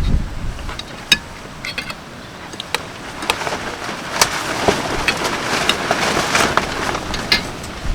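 Strong wind with rain, rising into a gust from about three seconds in, with scattered sharp taps throughout.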